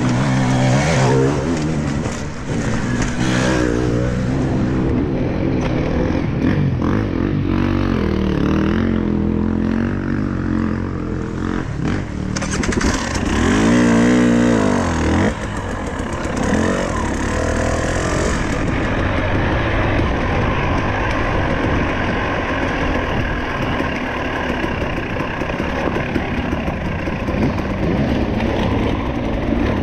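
Enduro dirt bike engine heard on board, its revs rising and falling with the throttle along a trail. There is a hard rev about halfway through.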